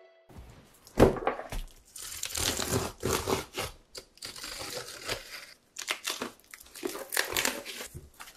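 Gift-box packaging being unwrapped by hand: irregular bursts of crinkling, rustling and tearing. A sharp knock about a second in is the loudest sound.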